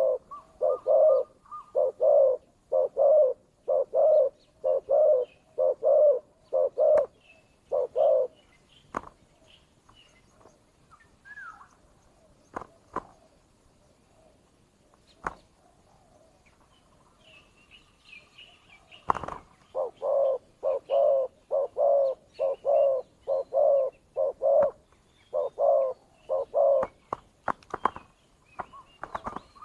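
Spotted doves cooing in two long bouts of short, rapidly repeated coos, about two a second, with a quiet spell of about ten seconds between the bouts. Scattered sharp clicks are heard between the calls.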